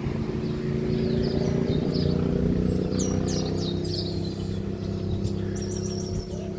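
Several birds chirping and calling in the morning chorus, with quick downward-sweeping notes a few seconds in and a rapid run of repeated chirps near the end. Under them runs a steady low motor-like hum, louder than the birds.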